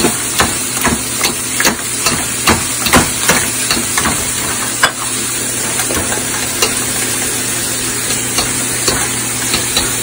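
Wire potato masher working boiled potatoes in a stainless steel pot: its metal clicks and knocks against the pot several times a second, more sparsely in the second half. Under it runs a steady sizzle of steak frying in a cast iron pan.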